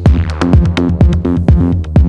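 Electronic dance music with a drum-machine beat of about four strokes a second over a heavy bass line.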